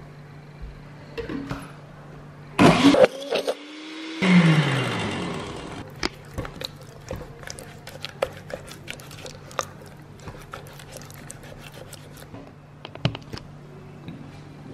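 Countertop blender run in two short pulses on frozen pear purée, the motor winding down with a falling whine after the second. Then a plastic spatula scraping and tapping against the glass blender jar in a run of clicks.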